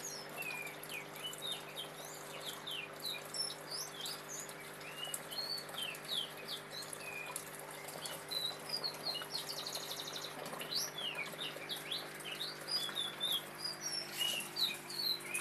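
Aquarium powerhead filter running: a steady low hum, with water trickling and bubbling as many quick little chirp-like drips.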